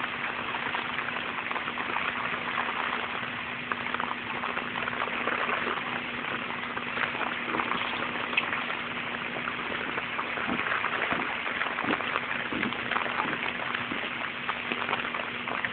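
Rain falling onto a flooded street, a steady dense patter of drops splashing into standing floodwater, with a faint steady hum underneath.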